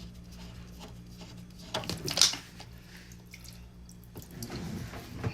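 Water dripping and splashing from a leaking water heater, with a couple of sharp knocks about two seconds in.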